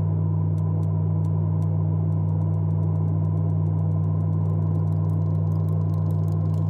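A steady, unchanging low droning hum with faint higher tones above it, typical of a horror-film score drone. Sparse sharp ticks or clicks sound over it, growing faster and denser near the end.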